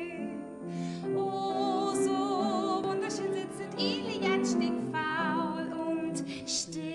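A woman singing a slow melody, holding notes with a clear vibrato.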